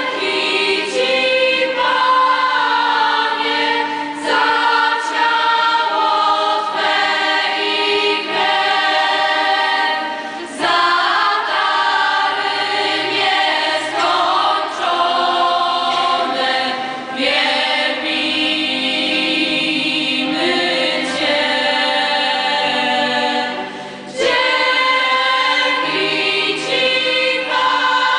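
Choir of mostly women's and girls' voices singing a hymn with electronic keyboard and violin accompaniment, in phrases that break briefly about every six or seven seconds.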